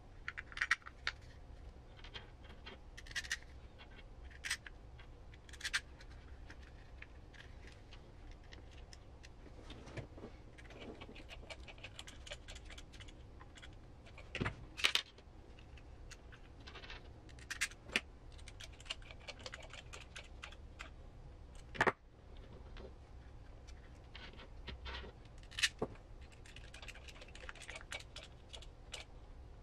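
Small screws and plastic parts being handled and fitted by hand during assembly of an RC crawler transmission: scattered light clicks and metallic clinks with some scraping, over a low steady hum.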